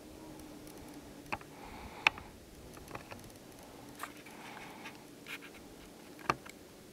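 A few sharp clicks, four in all with the second the loudest, and soft scratchy rustling over a faint steady outdoor background.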